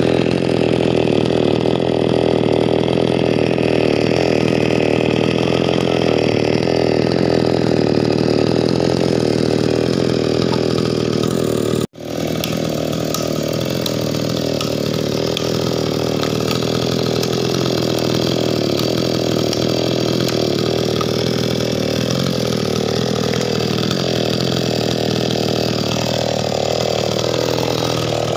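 Chainsaw engine running steadily at high speed. It cuts out abruptly for an instant about twelve seconds in, then runs on a little quieter with its pitch wavering.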